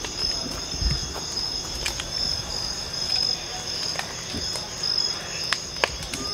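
Steady chorus of crickets trilling, with a few sharp pops and cracks from the burning house, the loudest near the end.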